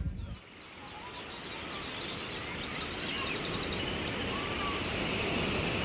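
Outdoor ambience fading up over the first few seconds: a steady hiss with many small birds chirping high above it, and a fast trill about halfway through.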